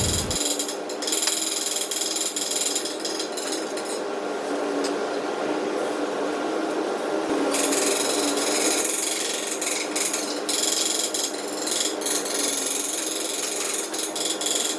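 Workshop tool noise: a steady, dense rasping with short breaks, typical of a power tool working on car body panels.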